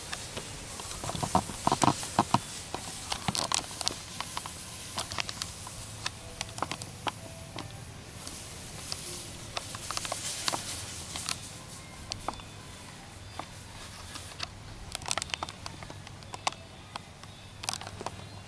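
A pressure washer runs with a steady low hum while spray spatters on clay barrel roof tiles. The spatter makes an irregular crackling patter of sharp clicks that is densest about a second in and again near the end.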